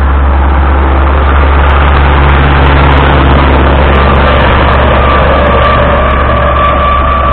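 Ursus C-362 tractor's diesel engine running steadily and loud at close range while working with its rotary drum mower. A steady whine joins it about four seconds in.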